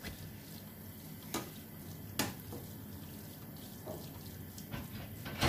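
Onion-tomato masala frying in oil in a pan, a faint steady sizzle, with a few light clicks and knocks, the loudest near the end.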